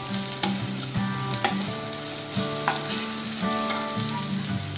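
Chicken strips, onion, carrot and capsicum stir-frying in a non-stick wok: a steady sizzle, with the spatula scraping and tapping against the pan now and then as the food is tossed.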